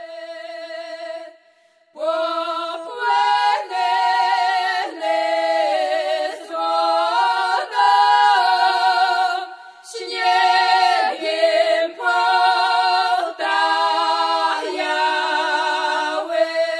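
Podhale highland (góral) folk singing, unaccompanied: one voice ends a held note, then after a short break several voices sing together in close harmony, in short phrases of held notes, with a brief pause near the middle.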